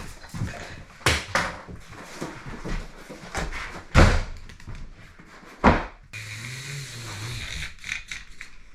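A few scattered hard knocks and thuds, the loudest about four seconds in, followed by a short low hum lasting about a second and a half.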